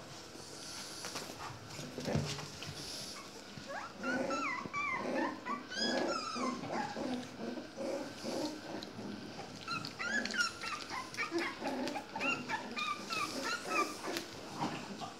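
A litter of young puppies whining and squeaking over one another in short, pitch-bending cries, in two bouts: one starting about four seconds in and another around ten seconds in. A single thump comes about two seconds in.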